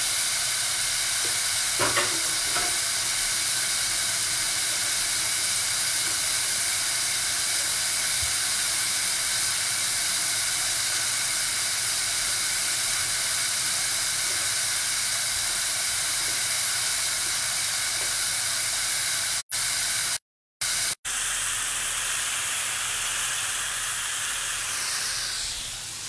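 Ground-beef burger patties sizzling steadily in a very hot cast iron pan on a gas burner turned up to high. The sound cuts out briefly a few times about twenty seconds in.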